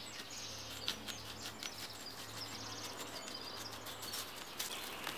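A hazel digging stick scratching and prying into spruce needle litter and forest soil, a scatter of faint scrapes and crunches, while small birds chirp in the background.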